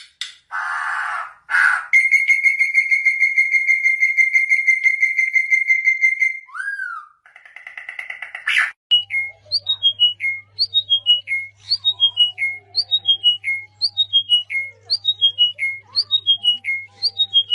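Bird calling and whistling: a harsh squawk, then a long steady trilled whistle, a short rising-and-falling note and a buzzy call. From about halfway through comes a quick falling whistled phrase repeated over and over, about every 0.7 s.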